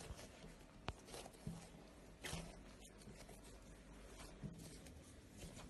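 Faint sounds of hands kneading soft feteer dough on a marble countertop: soft rubbing and pressing, with a sharp tick about a second in and a louder brushing sound a little past two seconds.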